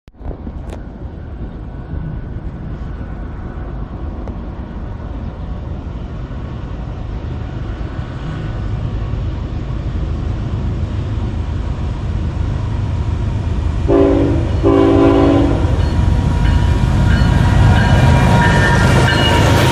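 Approaching CSX freight train led by GE diesel locomotives, its rumble growing louder as it nears. About 14 seconds in the locomotive horn sounds twice, a short blast then a longer one.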